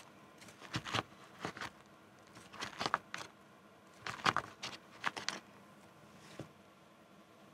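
Plastic fork stirring and scraping through instant noodles in a paper cup: clusters of short scrapes and clicks, the busiest about four to five seconds in.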